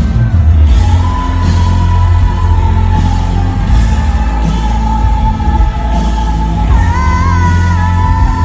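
Live rock concert recorded from the crowd: a singer holds a long high note that wavers near the end, over a loud, bass-heavy band with electric guitar.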